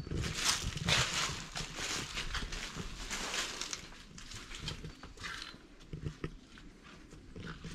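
Footsteps on dry dirt and debris: a run of irregular scuffing steps, louder at first and fainter after about halfway.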